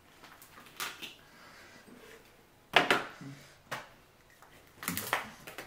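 Eating sounds close to the microphone while working on boiled shellfish: several sharp clicks and cracks, the loudest about three seconds in.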